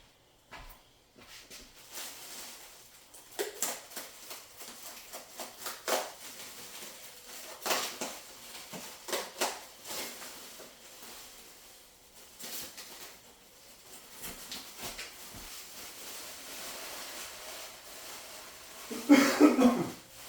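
Packaging being handled while unboxing: scattered rustling, taps and clicks, with a loud burst of rustling about a second before the end.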